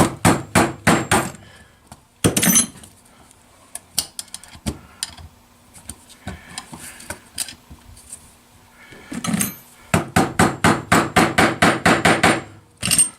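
Hammer blows on a screwdriver set behind a stuck outboard-motor seal, driving it out: a quick run of strikes at the start, one heavy blow about two seconds in, lighter taps in the middle, then a fast run of about four blows a second near the end.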